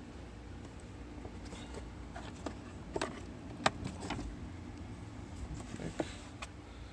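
Plastic clicks and knocks as a Toyota glove box bracket is handled and snapped back into place, a few light taps then a sharper snap in the middle, with more clicks later, over a steady low hum.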